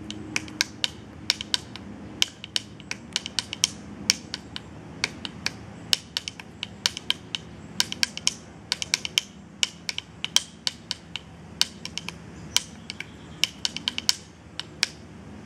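Thin wooden sticks tapped in a drum-like pattern: a quick, uneven run of sharp clicks, several a second, over a low steady hum.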